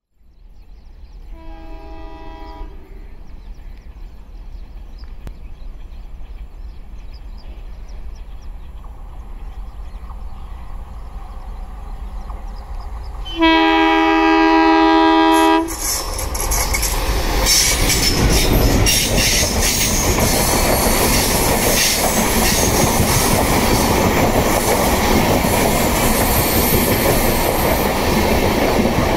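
Diesel locomotive hauling an express passenger train: a short horn blast in the distance about a second and a half in, then a much louder horn held for about two seconds as it draws near. After that the locomotive and a long rake of coaches pass close by, with steady wheel clatter and rumble on the rails.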